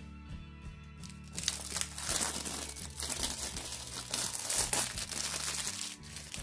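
Plastic packaging crinkling and crackling as a Blu-ray case is handled, starting about a second in and stopping shortly before the end, over background music with steady held tones.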